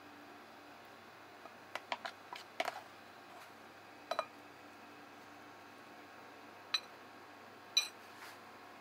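Quiet background hum with a handful of short, light clicks and clinks: a quick cluster in the first few seconds, then single ones about halfway through and near the end, the last with a brief ringing tone.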